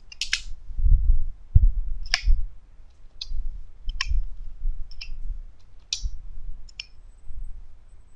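Scattered single keystrokes on a computer keyboard, roughly one click a second, with a couple of low thumps about a second in.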